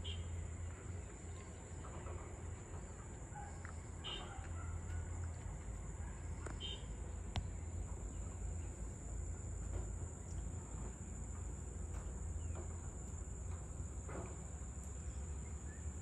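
Outdoor ambience: a steady high-pitched insect drone, with a few short bird chirps about four and six and a half seconds in. Underneath is a low, steady rumble.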